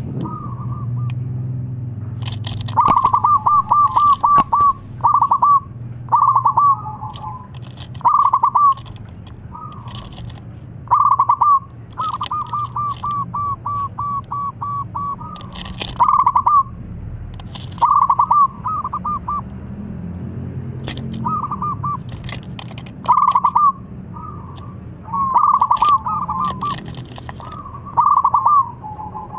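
Zebra dove (perkutut) singing: short bursts of rapid, clear staccato cooing notes, each about a second long, repeated every one to two seconds over a low steady background hum.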